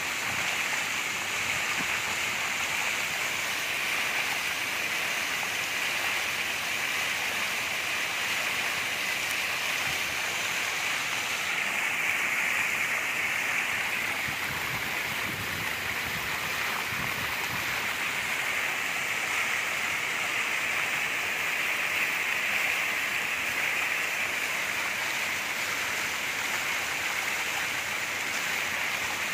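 Steady rushing and splashing of a small waterfall, its water sheeting down a sloping rock face close to the microphone.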